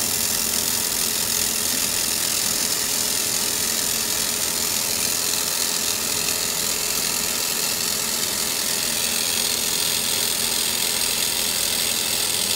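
A 3 kW handheld laser welding machine running through a fillet weld: a steady hiss with a faint steady hum underneath, unchanging throughout.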